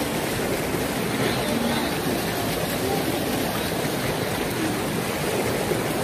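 Small waterfall plunging into a rock pool: a steady, even rush of falling water.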